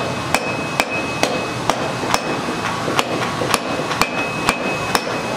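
Blacksmith's hand hammer striking a red-hot twisted iron bar on an anvil, an even beat of about two blows a second, with a high ring from the anvil carrying between blows.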